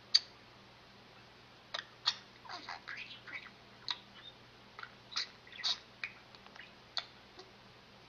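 Budgerigar chattering softly: scattered short chirps and clicks at irregular intervals, over a faint steady hum.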